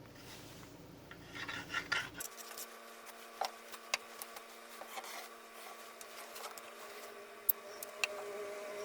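Light rubbing and scraping from hand work on small plywood parts, with a burst of scraping about a second and a half in and scattered small clicks after.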